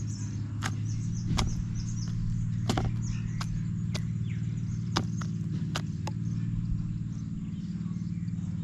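Australian magpie's beak pecking into a plastic tray of mealworms: about ten sharp taps at irregular intervals, over a steady low hum.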